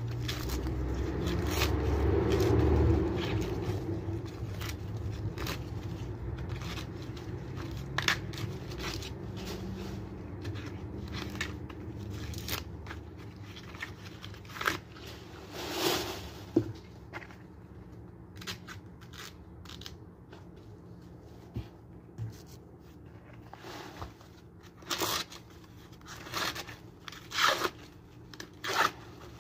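Green husks being torn and stripped off fresh ears of corn by hand: irregular crisp rips and rustling, with louder tears around the middle and several close together near the end. A low rumble fills the first few seconds.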